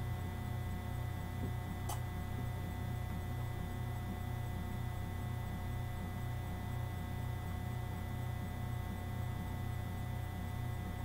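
Steady electrical hum with a faint regular pulsing in it and thin high whine tones above, with one short click about two seconds in.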